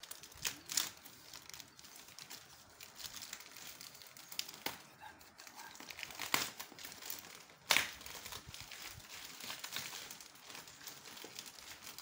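Plastic wrapping crinkled and torn open by hand, a steady rustle with several sharper rips, the loudest a little under eight seconds in.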